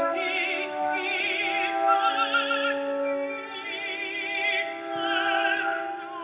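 Operatic singing in classical style: long held notes sung with wide vibrato, one note sliding into the next.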